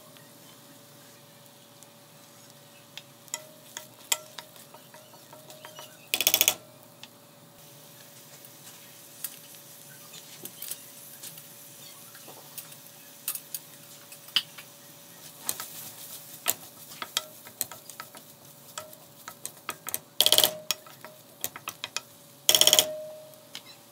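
Wooden spatula stirring and scraping frying onions and spices around a stainless steel kadai, with light sizzling and scattered clicks against the metal. A few louder knocks on the pan ring briefly, once about six seconds in and twice near the end, over a faint steady hum.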